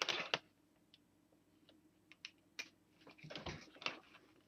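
Faint handling noise: a few scattered light clicks, then a short rustle and knocks about three seconds in, as a power plug is pushed into a wall outlet.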